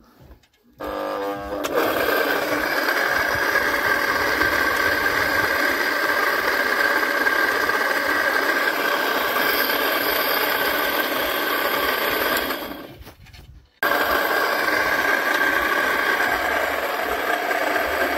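Electric motor turning a homemade cable drum made from a steel wheel rim, running steadily. About twelve seconds in it winds down and stops, then starts again abruptly a second later and runs on.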